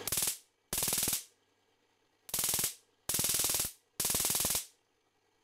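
High-voltage spark discharges from a hand-wound coil and rotary spark gap fed by a voltage doubler, firing in five short bursts of rapid snapping cracks with silent gaps between.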